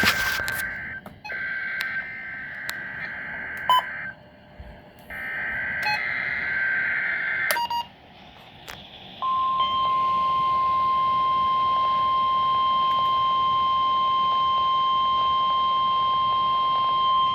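NOAA Weather Radio test coming through a weather radio receiver: bursts of the SAME digital header, a two-tone data squawk, during the first several seconds, then about nine seconds in the single steady 1050 Hz warning alarm tone comes on and holds.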